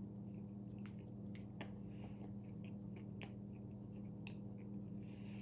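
A person chewing a mouthful of Whopper with fried pickles and bacon: faint, scattered crunches and mouth clicks over a steady low hum.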